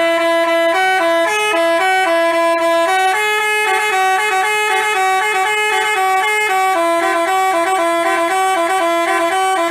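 Telolet Basuri multi-tone bus horn playing a quick tune of short stepping notes, several a second, without a break.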